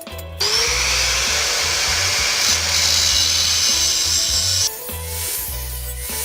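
A power tool motor starts with a rising whine and runs loud and steady for about four seconds, then stops abruptly. Background music plays under it.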